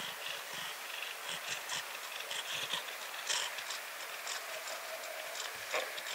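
Fingers stroking and scratching a brown tabby cat's head fur, a soft crackling rustle of fur and fleece blanket, with the cat purring faintly underneath.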